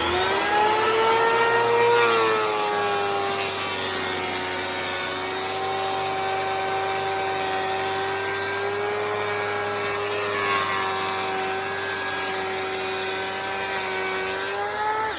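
Electric woodworking power tool motor running at high speed with a steady whine. It spins up at the start, dips slightly in pitch about two seconds in as it takes load, holds steady, and is switched off at the end, its pitch falling as it winds down.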